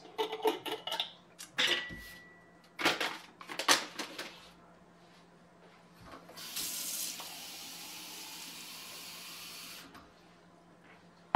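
A few clinks and knocks of a glass jar being handled. Then, about six seconds in, a kitchen tap runs for about four seconds, filling the jar of sprouting seeds with water so they can soak, and is turned off.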